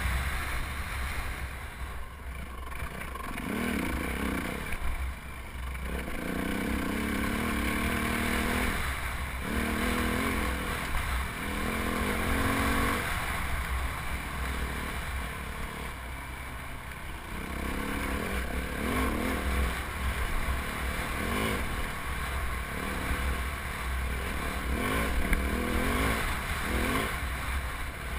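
Yamaha WR450F single-cylinder four-stroke dirt bike engine under riding load, its pitch rising and falling over and over as the throttle is worked and gears change along a trail, with wind rumble on the helmet-mounted camera's microphone.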